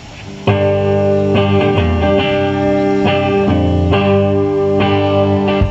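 A live band with electric guitars and bass kicks in about half a second in, playing chords for a song intro.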